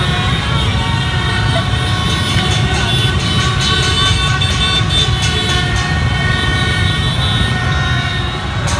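Dense motorbike street traffic and crowd: many horns tooting and blaring at once over the low rumble of engines, with scattered voices.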